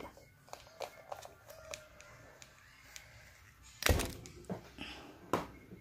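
Small plastic clicks and taps from handling a nebulizer's medicine cup and its lid, with one louder knock about four seconds in.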